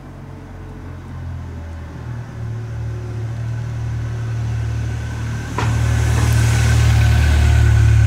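A car driving slowly across a level crossing and passing close: its engine rumble grows steadily louder, a single sharp knock comes about five and a half seconds in, and the tyre hiss is loudest near the end.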